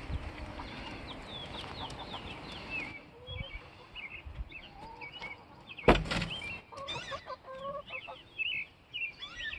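Chickens clucking and chirping in many short, high calls. A single sharp wooden knock about six seconds in comes as the coop's wooden door latch is worked and the door swings open.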